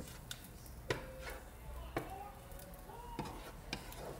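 Wooden spatula stirring ground beef in a nonstick frying pan, making irregular knocks and scrapes against the pan.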